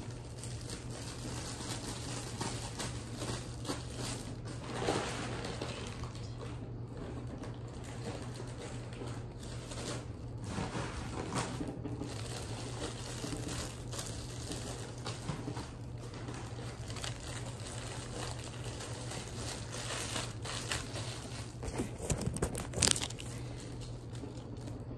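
Light crinkling and rustling of candy wrappers and treat bags being handled while filling Valentine candy bags, with a few louder rustles near the end. A steady low hum runs underneath.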